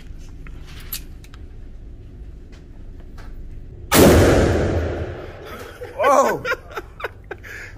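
A single shot from a .500 S&W Magnum revolver: one sudden, very loud bang about four seconds in, ringing on in the echo of an indoor range for over a second as it dies away.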